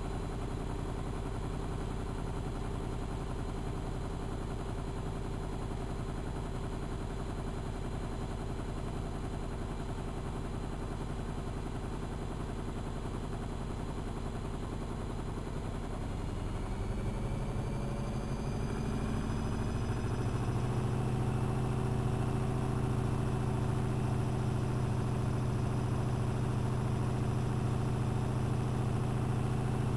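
AEG Electrolux Lavamat L6461 washing machine running steadily. About halfway through, its motor speeds up with a rising whine over a few seconds, then holds at a higher, louder steady speed as the drum spins faster.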